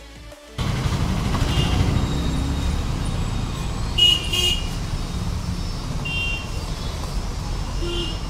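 Street traffic rumbling, with several short vehicle horn toots, the loudest about four seconds in.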